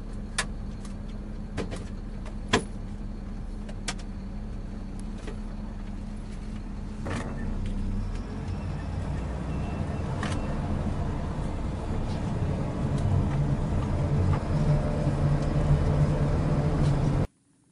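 Engine of a military troop-carrying vehicle running, with sharp clicks and knocks of gear and weapons as soldiers board through the rear. About seven seconds in the engine grows louder, louder again later, then the sound cuts off abruptly near the end.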